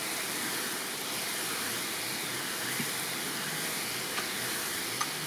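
Garden hose spray nozzle spraying water onto bare dirt: a steady, even hiss of spray.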